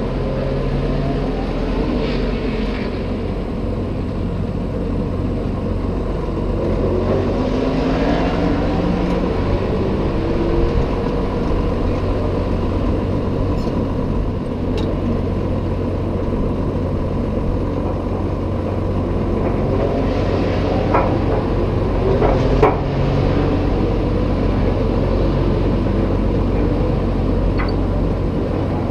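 John Deere 7610 tractor's six-cylinder diesel engine running at low revs as it backs up to a square baler's hitch and settles to idle, with a few sharp knocks about three-quarters of the way through.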